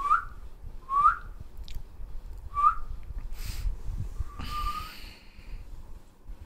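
A person whistling short upward-sliding notes: three quick chirps, then a longer whistle about four and a half seconds in, with a brief hiss between.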